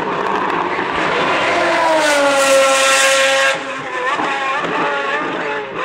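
Lamborghini Murciélago R-SV GT1 race car's V12 engine accelerating hard away out of a corner, its pitch climbing as it revs. About three and a half seconds in the revs drop sharply, and the engine runs lower and quieter as the car pulls away.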